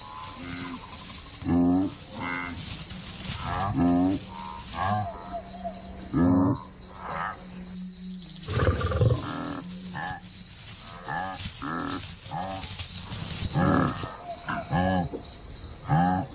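A herd of blue wildebeest grunting: short calls from several animals, one every second or two, over a steady high-pitched insect drone.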